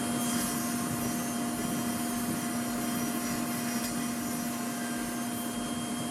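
A woodworking power tool's electric motor running steadily at full speed, a constant whine over a noisy hiss with no change in pitch or load.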